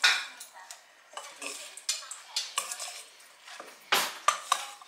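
A utensil stirring and tossing chopped salad in a stainless steel mixing bowl: irregular scrapes and metal clinks against the bowl, a few of them sharper and louder.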